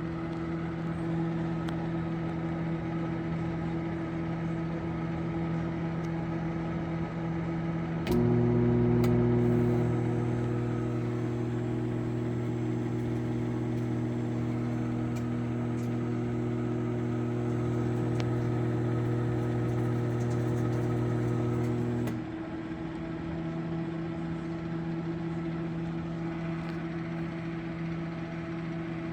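Sharp Carousel microwave oven running on 50% power. A steady hum of its fan and turntable runs throughout. About eight seconds in there is a click, and a louder, deeper hum of the magnetron's transformer joins for about fourteen seconds before cutting off: the oven cycling its magnetron on and off to give half power.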